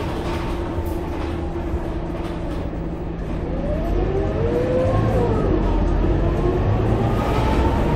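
Scania K230UB bus's diesel engine and drivetrain heard from inside the passenger cabin, running steadily under way. About three and a half seconds in it grows louder, with a whine that rises and falls in pitch.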